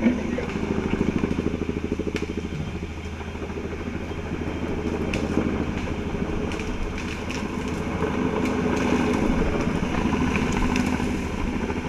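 Helicopter hovering close overhead: a steady, rapid rotor beat over engine noise, a little louder in the second half, with a few sharp clicks.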